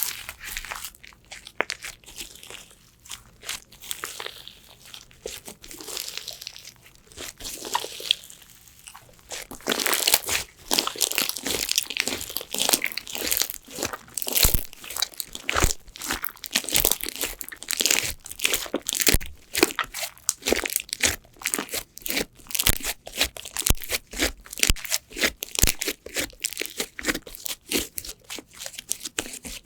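Crunchy slime being squeezed and pressed by hand, giving a dense run of crackling and popping. It is quieter at first and grows louder and busier about a third of the way in.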